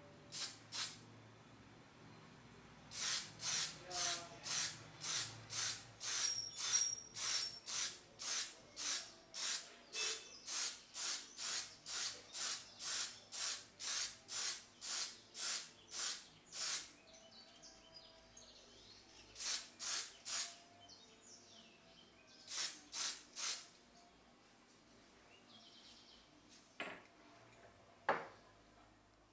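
Spray paint hissing out in short puffs, about two a second for some fourteen seconds, then a few more in two short groups. Two sharp knocks near the end.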